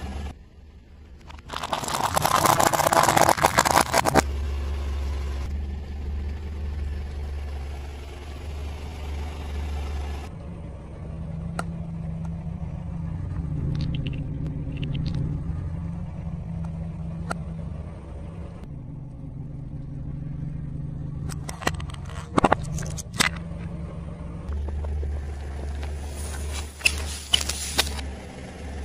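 Car tyre rolling slowly over objects on asphalt with the engine idling. About two seconds in, instant-noodle packs crunch loudly under the tyre for a couple of seconds. Later come clusters of sharp cracks and pops as other items are crushed.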